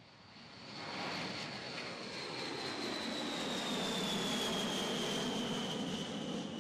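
A B-52 Stratofortress's eight TF33 turbofan engines at takeoff thrust as the bomber climbs out overhead. The jet roar swells within the first second and holds steady, with a high whine that slowly falls in pitch as the aircraft passes.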